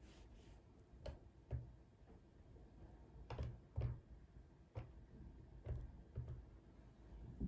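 Red silicone spatula working thick cake batter in a glass bowl: faint soft knocks and plops at uneven intervals as the spatula lifts and drops the batter and touches the bowl.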